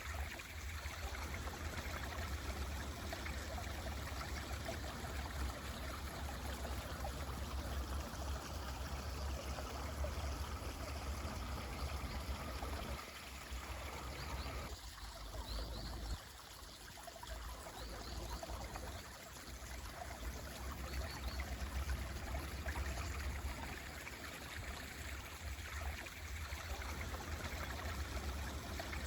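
Mountain stream flowing steadily, its water rushing as an even wash, with a few faint, short high chirps about halfway through.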